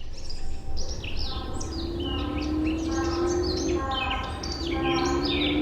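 Many birds chirping and singing in the trees in a countryside ambience recording, over a steady low rumble. A drawn-out, slowly rising low tone sounds twice beneath the birdsong.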